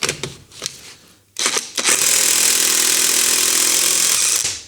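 Parkside 20 V cordless impact wrench hammering on a lug nut for about two and a half seconds, breaking loose a nut that had been tightened past 196 Nm. A few short knocks as the socket goes on come first.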